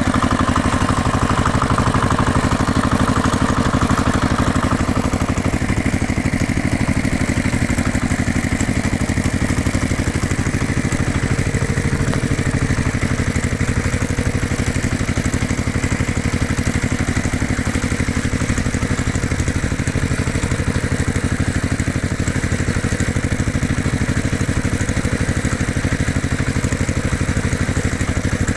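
Farm tractor engine running steadily at an even, low speed, a continuous rhythmic chugging. A brighter, higher sound over the engine fades out about four seconds in.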